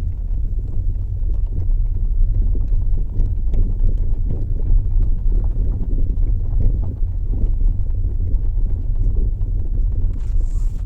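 Honda Shuttle GP8 on the move, a steady low road rumble with many light, irregular knocks mixed in. The knocks are of the kind the owner traced to a worn steering tie rod end.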